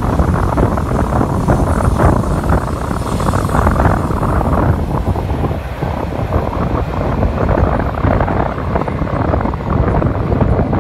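Long freight train rolling past on the track, a steady low rumble, heavily overlaid by gusty wind buffeting the microphone.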